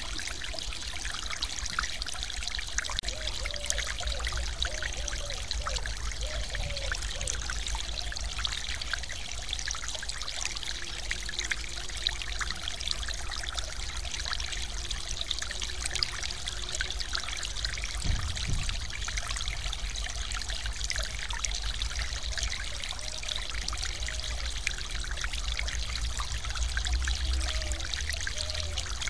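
Stream water pouring over a low weir in a small waterfall: a steady, even rush of splashing water, with faint gurgling and a low rumble beneath it.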